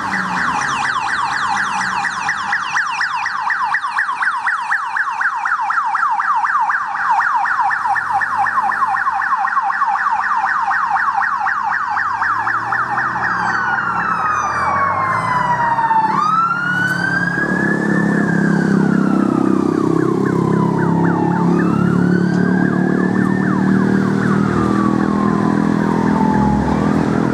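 Sirens of a police motorcycle and an ambulance on an emergency run. A rapid yelp runs for the first half. About halfway through it changes to a slow wail that rises and falls every few seconds, with vehicle engines droning underneath in the later part.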